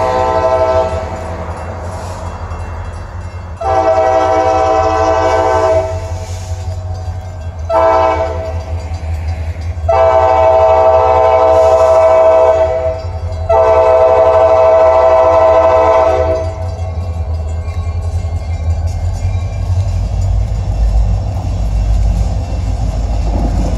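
RJ Corman diesel locomotive air horn sounding the grade-crossing signal. It plays the tail of one long blast, then a long, a short, and a final long held about six seconds with one brief break. After the horn stops, the low rumble of the locomotives grows as the train draws near.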